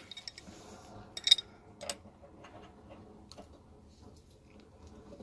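Metal clicks and clinks of an adjustable wrench working the supply-line nut onto a water heater's pipe nipple, the sharpest a little over a second in and another near two seconds, then scattered faint ticks.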